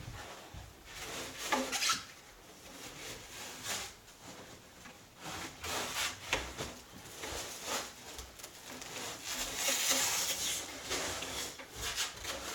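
Irregular scraping, rubbing and knocking as the pinball machine's wooden cabinet is shifted and worked on by hand, with a longer stretch of scraping about ten seconds in.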